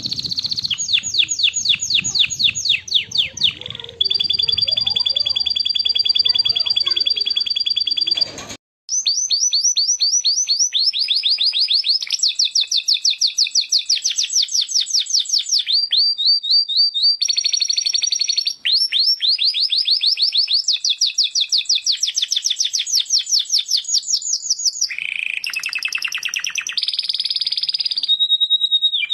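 Domestic canary singing a long, loud song of fast trills, rapid repeated notes and held whistles. The song breaks off for a moment about eight and a half seconds in and then resumes.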